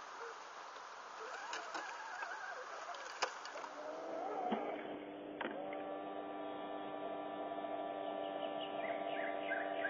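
Electric motor and gearbox of an RC scale truck whining steadily at one speed, starting about halfway in after soft outdoor rustling and a few clicks.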